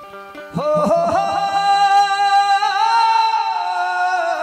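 A Hindi devotional bhajan: a male voice holds a long sung note over harmonium. The voice slides up into the note about half a second in, steps higher about halfway through and drops near the end.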